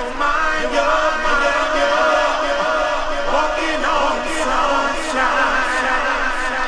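A cappella vocal track with echo: a male lead and a group of voices singing together without instruments, played from a 45 rpm vinyl record.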